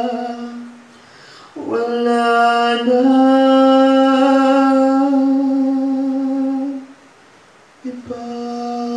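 A man's voice singing alone, wordless long held notes like humming. A note fades out, then after a short pause a note slides up and is held for about five seconds, and after another pause of about a second a new held note begins near the end.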